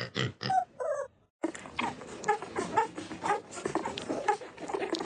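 A pet animal's short pitched cries: a few separate ones, then after an abrupt cut a rapid run of them, about three a second, over a steady hiss.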